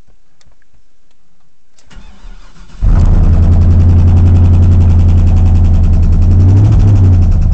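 Chevrolet Silverado 2500HD's 6.0-litre LQ4 V8 starting: a few faint clicks and a low hum, then the engine catches about three seconds in and runs loud and steady at idle, with a brief slight rise in revs near the end. A rapid, even knocking runs through the running engine: rod knock.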